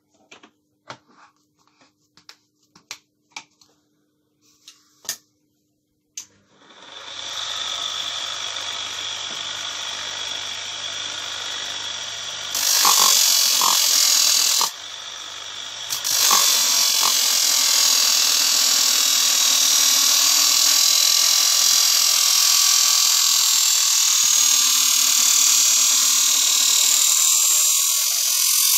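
Several separate clicks and knocks, then a simple homemade electric knife-sharpening machine starts about six seconds in and runs steadily. From about halfway a loud, hissing grind of a knife blade against the turning sharpening wheel sets in. It breaks off briefly, then goes on to the end.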